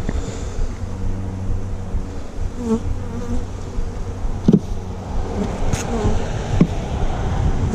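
A swarm of honeybees buzzing close around the microphone in a steady hum, the bees stirred up by the opened hive. A few sharp knocks come in the second half.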